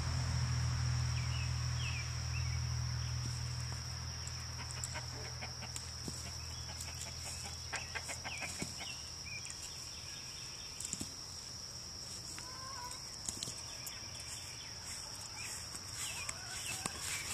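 Farmyard ambience: a steady high insect drone, with chickens clucking and chirping now and then. A low hum that fades away over the first few seconds is the loudest sound, and there are scattered light clicks and rustles toward the end.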